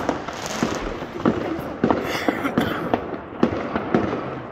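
Fireworks going off overhead: a dense, irregular run of sharp bangs and crackles from many bursts.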